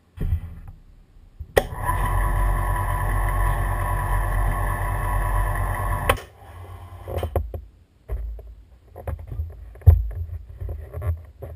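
Hoist motor running steadily for about four and a half seconds as the engine is lowered into the jet-ski hull, starting and stopping abruptly; then scattered knocks and clunks of the engine and parts being handled, the loudest near the end.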